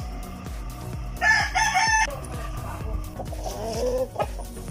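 A rooster crows loudly about a second in, a single call of under a second. A second, quieter rising call follows a little before the end.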